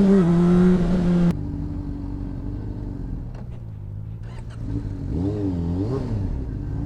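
Honda sport bike's engine revving as the rider pulls away, then cutting out abruptly about a second in as it stalls. A quieter engine note follows, swinging up and down in pitch near the end.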